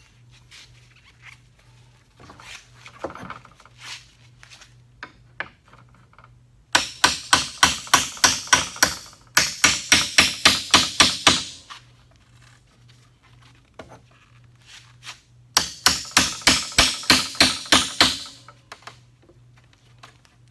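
Reciprocating saw cutting between pallet boards in three bursts of about two seconds each, its strokes hammering at roughly four to five a second. The blade is chattering and jumping rather than cutting cleanly because it is dull.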